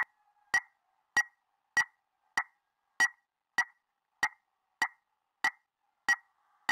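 A ticking sound effect: sharp, evenly spaced ticks, about three every two seconds, with silence between them.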